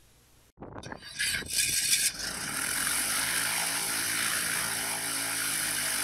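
Starter cranking the 1977 Mooney M20J's fuel-injected, horizontally opposed four-cylinder Lycoming IO-360 engine, which catches about two seconds in and settles into a steady idle with the propeller turning.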